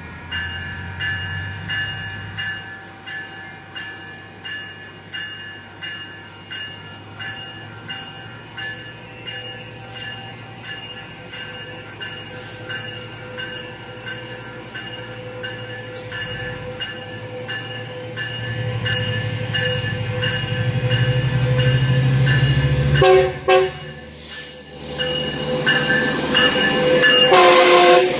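Metrolink diesel commuter train arriving: a bell rings steadily at about one and a half strokes a second, and the locomotive's engine rumble builds. Its horn sounds briefly about 23 seconds in, then loudly again near the end as the locomotive comes alongside.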